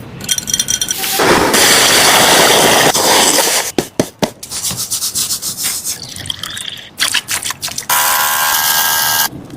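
A squishy toy being squeezed and pressed, giving wet, crackly squelching noise in loud spells, the longest about 1.5 to 3.5 seconds in. Near the end there is a short pitched squeak.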